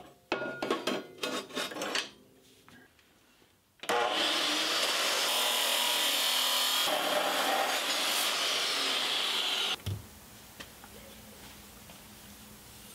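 Abrasive chop saw cutting through steel bar stock: a loud, steady grinding hiss for about six seconds that cuts off suddenly. A few knocks and rattles come before the cut.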